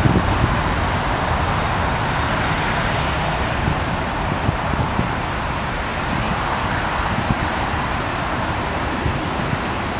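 Steady rushing jet noise from a four-engined Qantas Boeing 747 rolling away down the runway.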